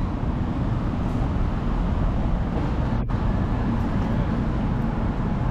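City street background with a steady low rumble of passing traffic, with a brief dropout about three seconds in.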